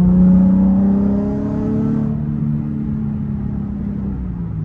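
Nissan 350Z's 3.5-litre V6 running at highway cruise, heard from inside the cabin as a steady engine note whose pitch edges up slightly before the note softens a little about two seconds in. The car has a stiff Z1 aftermarket transmission mount fitted, which lets a lot more drivetrain noise into the cabin.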